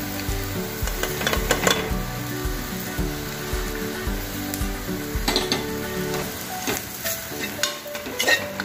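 Onions sizzling in hot coconut oil in a pressure cooker as spice powders are tipped in and stirred through, with a steel spoon scraping and knocking against the pot several times.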